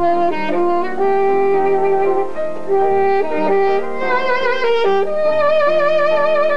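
Saxophone playing a slow melody in held notes, the long notes swelling with vibrato in the second half.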